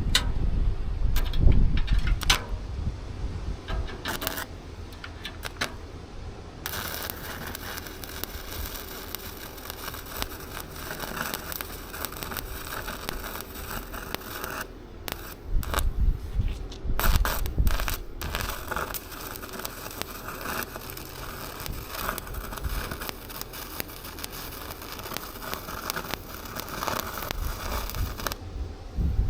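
Welding arc crackling steadily in two long runs, the first starting about seven seconds in and the second, after a short break, stopping near the end; some knocks and rumble come before it.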